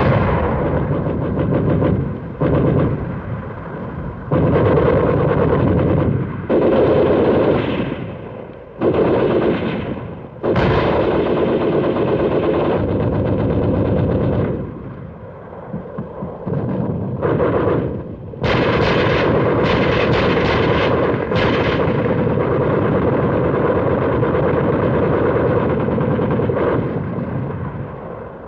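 Heavy machine-gun fire in repeated bursts, each a second to a few seconds long, with one long unbroken stretch in the second half: covering fire for an infantry advance.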